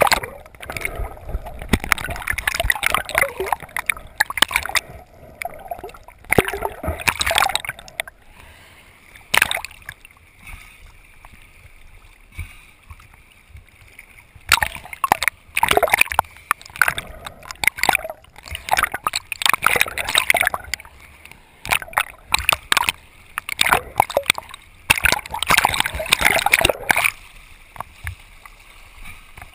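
Sea water splashing and gurgling around a camera at the waterline, coming in irregular bursts as waves wash over it and it dips under and back out. There is a quieter spell in the middle, then a long run of splashing.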